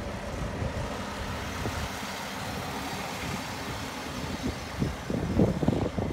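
ÖBB class 5047 diesel railcar running past on the track, its diesel engine and wheels on the rails making a steady rumble. About five seconds in, a short run of low clattering knocks rises over it.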